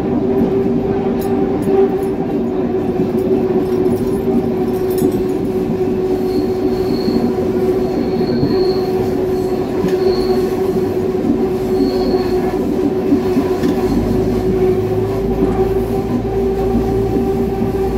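Old diesel railbus running along a branch line, heard from the driver's cab: a steady engine drone, with several short high wheel squeals in the middle as it takes a curve. A deeper rumble joins near the end.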